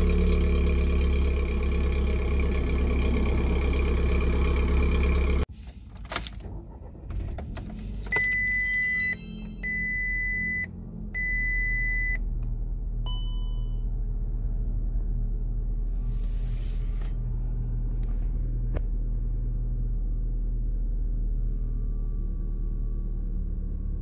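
VW Golf MK6's 1.4 TSI turbocharged petrol four-cylinder idling steadily on a cold start, heard first at the exhaust tips and then, from about five seconds in, more quietly from inside the cabin. Inside, a few clicks are followed by three dashboard warning chimes and a single shorter tone a moment later.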